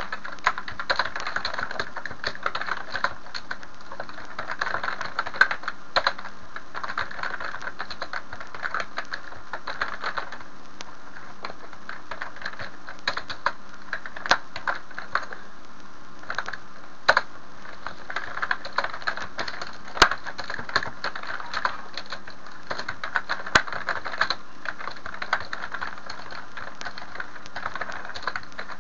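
Computer keyboard typing in irregular runs of rapid keystrokes, with a few louder single key strikes scattered through.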